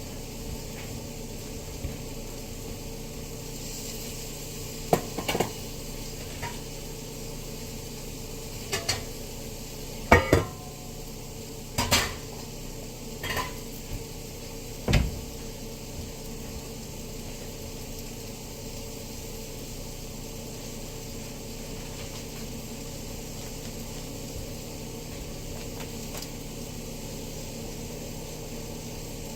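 Cookware and utensils clattering: a burst of about a dozen knocks and clinks between roughly 5 and 15 seconds in, over a steady background hum.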